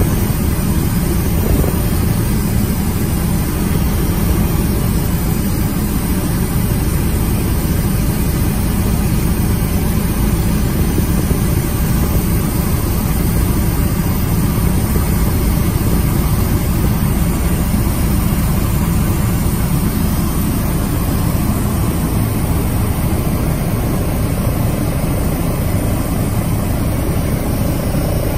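Helicopter engine and rotor noise heard from inside the cabin: a steady, loud, unbroken drone, strongest at the low end.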